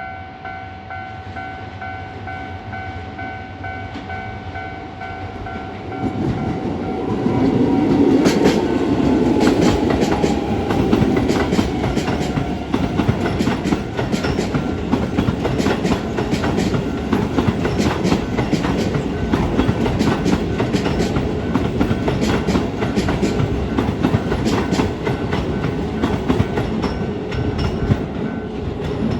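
A level-crossing warning bell rings steadily. About six seconds in, a Keisei 3000-series electric train starts passing over the crossing and keeps passing to the end. Its wheels clatter over the rail joints, and a falling whine runs under it for several seconds.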